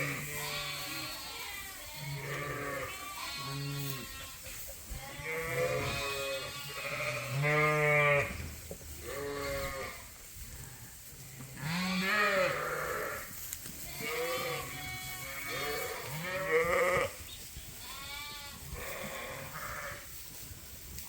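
A flock of sheep bleating, with many overlapping calls, some deep and some higher, one after another throughout.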